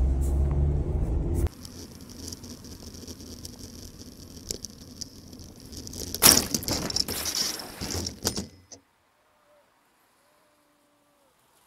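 A vehicle's low rumble that cuts off after about a second and a half, then faint road noise. About six seconds in comes a loud, sudden crash, followed by about two seconds of clattering, before the sound cuts off to near silence.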